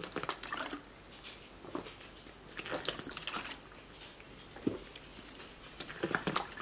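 Gulps of water drunk from a plastic water bottle, with small clicks and crackles of the plastic. There is one drink at the start and another near the end, swallowing tablets down.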